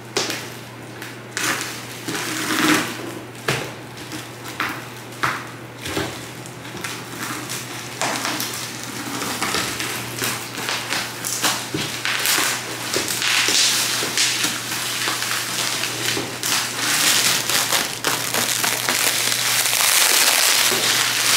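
Scissors snipping and clear plastic stretch wrap and bubble wrap crinkling as they are cut and pulled off a large box. Sharp snaps come first, then a dense crackling rustle that grows louder near the end, over a steady low hum.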